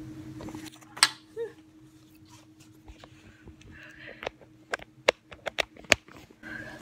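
Fingers handling a phone close to its microphone: a loud click about a second in, then a run of sharp taps and clicks near the end.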